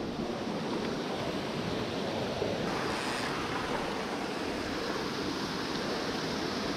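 Mountain stream rushing over small rock cascades: a steady, even sound of falling water.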